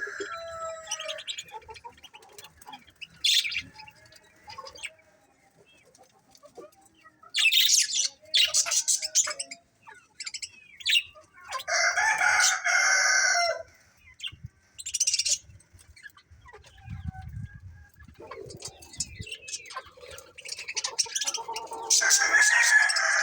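Small caged birds, budgies, chirping in scattered bursts, with a rooster crowing near the end.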